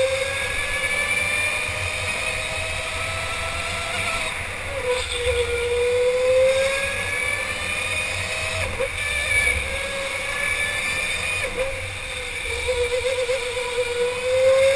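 Electric go-kart motor whining under power. Its pitch climbs as the kart accelerates, then drops sharply three times as the kart slows for corners.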